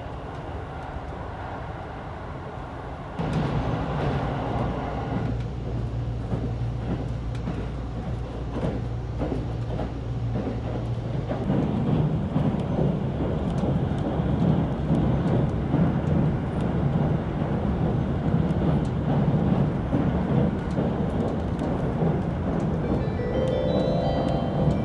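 Running noise of a JR Central 373-series electric express train heard inside the passenger car: a steady rumble of wheels on rail with a low hum, stepping louder about three seconds in. Light musical notes begin near the end.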